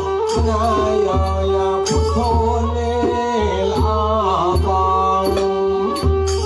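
Northeast Thai (Khmer-Surin) mahori kantrum ensemble playing: a two-headed barrel drum beats a steady low pulse under a bowed fiddle's gliding melody, with sharp percussion clicks.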